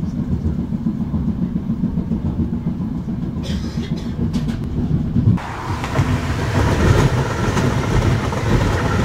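Budapest HÉV suburban electric train running on its track, a steady low rumble heard from on board. About five seconds in, a loud rushing hiss joins as another HÉV train passes on the next track.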